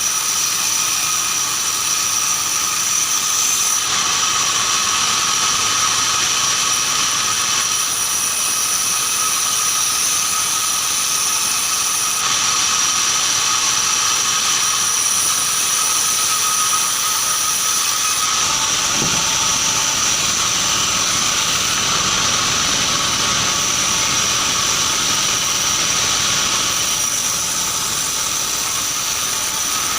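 Band sawmill running steadily with a high whine, sawing keranji hardwood.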